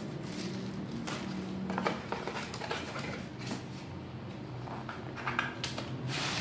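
Large cardboard laptop box being handled on a tile floor: light knocks, scuffs and rustles, coming thicker near the end as the box is tipped up, over a steady low hum.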